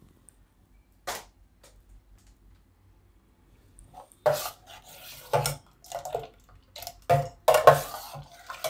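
Steel spoon stirring thin bael fruit pulp and water in a stainless steel bowl: the spoon knocks and scrapes against the bowl's metal, and the liquid sloshes. There is a single click about a second in, then irregular knocks and scrapes from about four seconds in.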